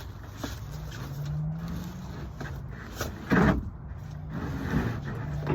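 A plywood subfloor board scraping and knocking as it is worked into place on a van floor, with a louder thump about three seconds in.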